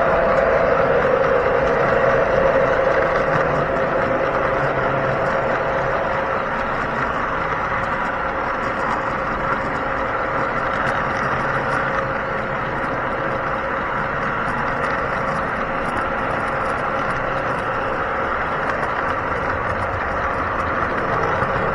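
O scale model train running along its track, heard from a car in the train: a steady mechanical hum and rumble with a few held tones.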